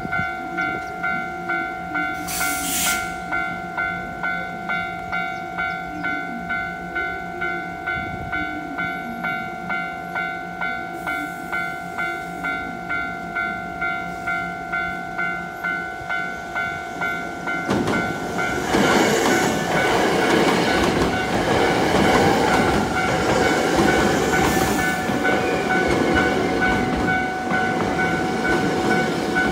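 Japanese level-crossing warning bell ringing in a steady, repeating electronic ding, about two strokes a second, for a Hankyu 5000 series train. From about 18 seconds in, the train's wheels and running gear add a loud rolling noise as it passes the crossing on its way into the station.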